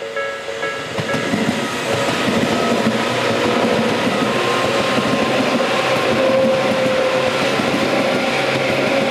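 Tobu 6050 series train passing over a level crossing, its wheels running loud over the rails, building about a second in and then holding steady. The crossing's electronic warning bell keeps ringing in a steady pulse underneath and comes through more clearly near the end.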